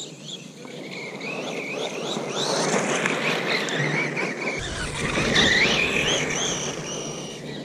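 Electric RC buggy's brushless motor whining, its pitch sliding up and down with the throttle, over the crunch of its tyres on loose gravel; it swells as the buggy passes close, loudest about five and a half seconds in, then fades.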